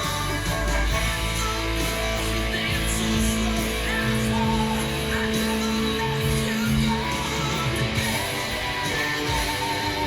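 Guitar music: a guitar playing over a full-band rock backing, with notes held for a second or more at a time.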